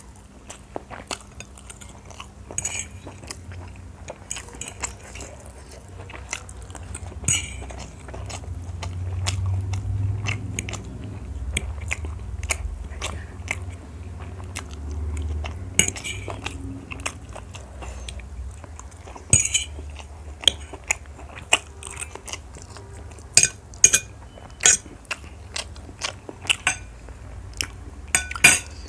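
Close-miked eating: steady chewing with many sharp, crisp crunchy bites, which come thicker in the last few seconds.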